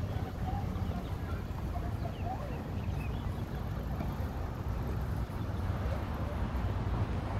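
Outdoor street ambience: a steady low rumble of wind or distant traffic, with a few faint bird chirps in the first three seconds.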